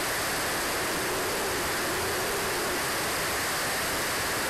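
Steady rushing noise heard through the onboard camera of an RC jet in flight: airflow over the airframe mixed with its Swiwin SW60 turbine running.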